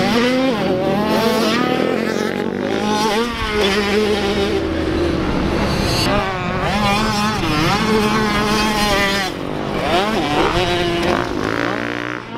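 Several dirt bike engines revving, their pitch climbing and dropping over and over as the riders accelerate, let off and shift.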